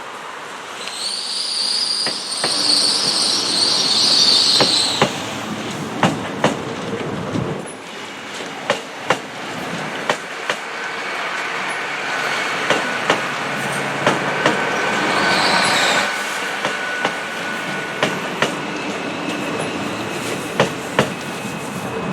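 Train wheels squealing against the rail, a high squeal for the first few seconds and again briefly about two-thirds of the way through. The wheels click sharply over the rail joints throughout the passage, often in pairs.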